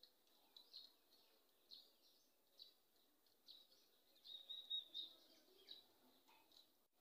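Faint bird chirps repeating about once a second, with a brief louder run of chirps a little past the middle.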